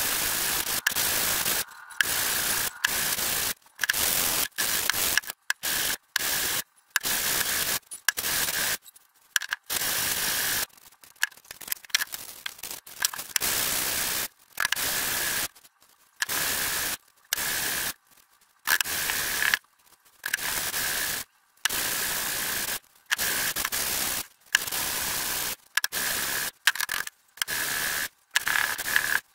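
Wooden hand-plane body rubbed back and forth on sandpaper laid flat on a hard slab: repeated rasping sanding strokes, about one a second. Between roughly 9 and 14 seconds in, the strokes come shorter and more broken.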